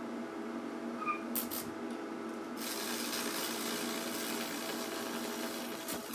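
High-voltage current from a 12 kV neon sign transformer arcing into a salt-water-wetted mahogany board: over a steady electrical hum come two clicks about a second and a half in, then from about two and a half seconds a steady sizzling hiss as the discharge starts to burn into the wood.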